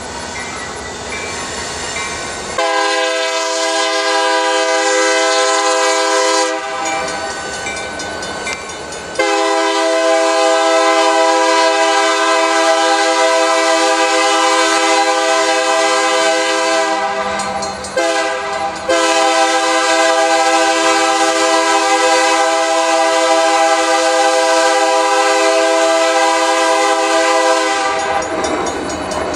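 Diesel locomotive's multi-note air horn blowing three long blasts (about four seconds, then about eight, then about nine after a brief break) as it approaches a grade crossing, with the locomotive's low engine rumble underneath.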